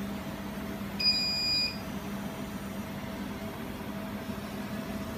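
Jewelry laser welding machine giving one electronic beep about a second in, lasting well under a second, over a steady low hum; the beep comes as its power supply finishes starting up and is ready to weld.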